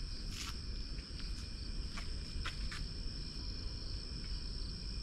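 Night insect chorus of crickets trilling steadily at a high pitch over a low rumble, with a few short clicks in the first few seconds.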